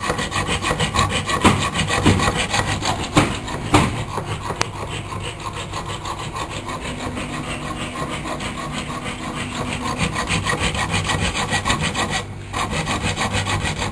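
A saw cutting a hole for a round electrical box, a steady run of rapid strokes with a brief pause about twelve seconds in.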